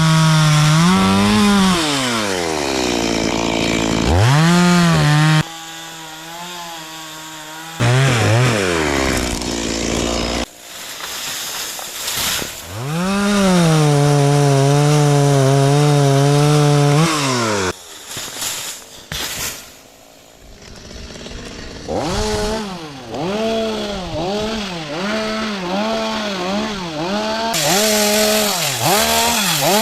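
Stihl two-stroke chainsaw revving up to full throttle and holding there in long cutting stretches, dropping back to idle between them. Later it is blipped in quick repeated revs about once a second.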